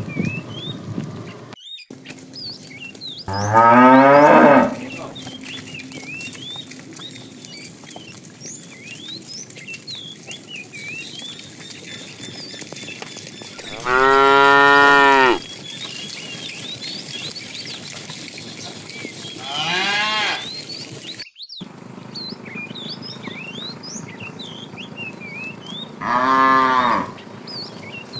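Cows mooing: four separate moos a few seconds apart, the first rising in pitch and the second the longest, about a second and a half.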